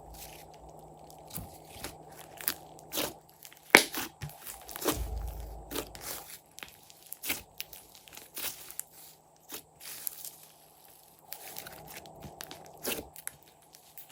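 Glossy slime being kneaded and squeezed by hand. It makes irregular sticky pops and crackles, and there is one dull thump about five seconds in.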